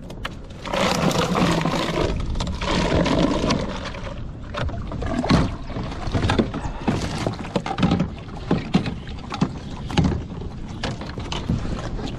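Handling noise from a bait tube on a plastic kayak as live akule (bigeye scad) are taken out. First comes a few seconds of rustling and water noise, then a run of sharp, irregular knocks and slaps.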